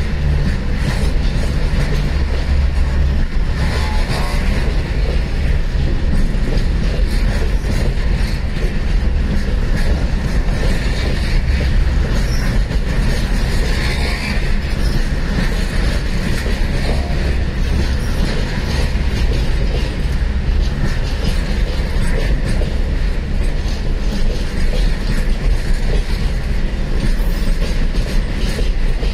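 Container freight train wagons rolling past at close range: steel wheels clicking and clattering over the rails with a steady low rumble from the bogies, loud throughout.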